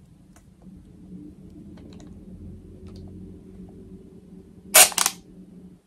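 Small motor of a toy hair-twisting gadget whirring steadily as it twists a doll's hair. A short cluster of loud, sharp clicks comes near the end.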